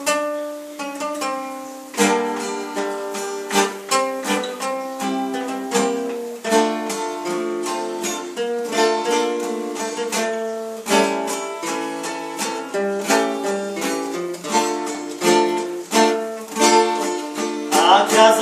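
Instrumental music of plucked steel-string guitars: a few single picked notes, then from about two seconds in a steady picked melody over chords.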